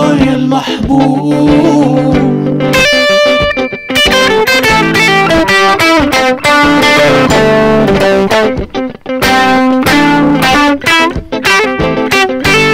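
Gibson Les Paul electric guitar played through a TC-Helicon VoiceLive 3 Extreme effects processor: held chord notes at first, then from about three seconds in a fast run of picked lead notes over sustained tones.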